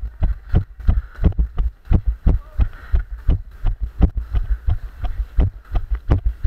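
Running footsteps thudding on a wet, muddy dirt trail, about three strides a second, picked up with each jolt of a body-worn camera.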